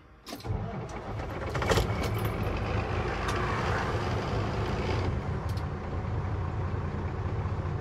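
Volvo semi-truck's diesel engine starting, heard from inside the cab: it catches under a second in, builds up over about two seconds, then settles into a steady idle. The truck is being restarted on the shoulder after it lost power and throttle response.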